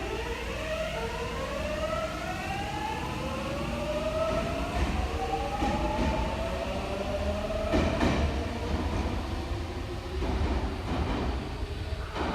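Subway train accelerating: the electric traction motors whine in several tones that rise steadily in pitch for about six seconds, over a steady low rumble, with a few sharp wheel clacks later on.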